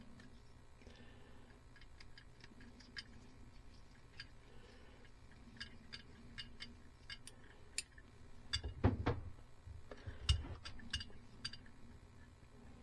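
Irregular small clicks and ticks of a small screwdriver working the screws of a Euro-style terminal strip while wires are fitted, with a couple of louder knocks about two-thirds of the way through.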